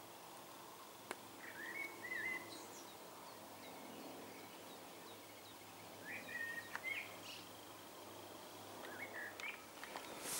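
A songbird singing short whistled phrases three times, over quiet outdoor background noise, with one sharp click a little over a second in.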